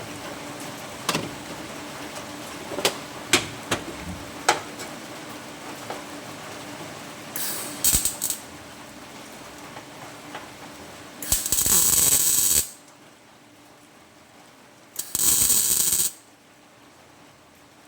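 MIG welder tack-welding sheet steel: a few short sputters of arc midway, then two crackling bursts of about a second each later on. Before them come scattered clicks and knocks of the panel and torch being positioned.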